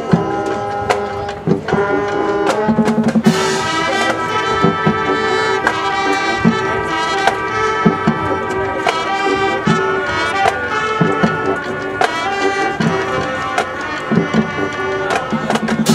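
Marching band playing live: trumpets and trombones in sustained chords over marching drums, the full ensemble filling out about three seconds in.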